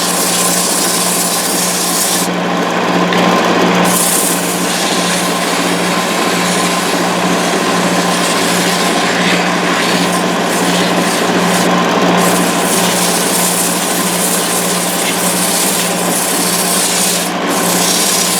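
Wood lathe running with a steady motor hum while a turning tool cuts and scrapes the spinning wooden finial blank. The high hiss of the cut comes and goes in spells, with short breaks a couple of seconds in and near the end.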